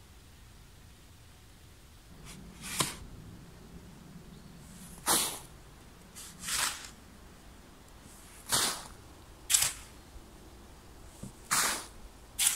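Steel spade digging sandy soil: a series of about seven short, gritty scrapes and scoops, roughly one every one to two seconds, starting about two seconds in.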